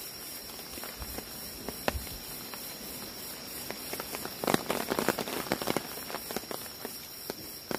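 Forest insects droning steadily at a high pitch, with scattered sharp clicks and crackles that bunch up into a dense run about halfway through.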